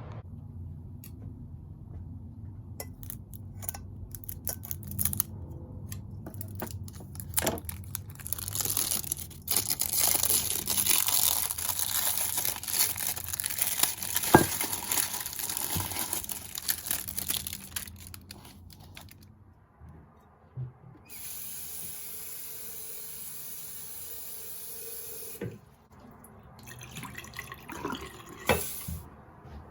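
Water being poured and running, with a stretch of steady splashing and scattered clicks and knocks of things being handled before and after.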